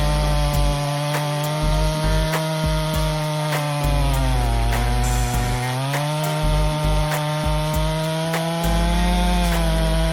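Echo CS-800P two-stroke chainsaw running at high speed while cutting through wood. About halfway through, the engine note drops as the chain bogs down in the cut, then it picks back up.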